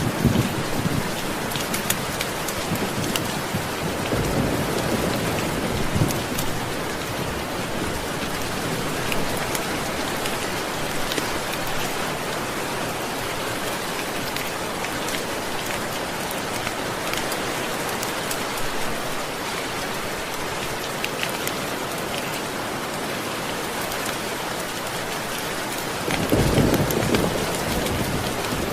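Steady rain falling, with low rolls of thunder about four seconds in and again near the end.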